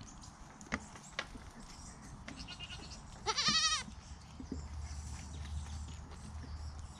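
A goat kid bleats once, a single call of about half a second with a wavering pitch, a little past the middle. Two faint clicks come earlier, and a low rumble runs through the second half.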